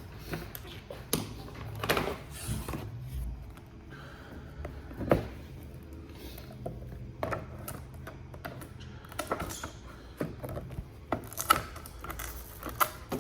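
Scattered light clicks and knocks of objects being handled, irregular, with a low steady hum underneath.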